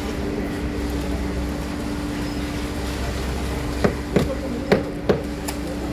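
A steady engine drone with a held hum runs throughout, and four sharp knocks, in two pairs, come about four seconds in, like hammer strikes on wood.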